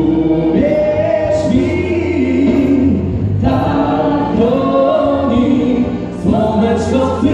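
A large group of voices singing a song together in unison phrases, with short breaks between phrases about three and six seconds in, over a steady low accompaniment.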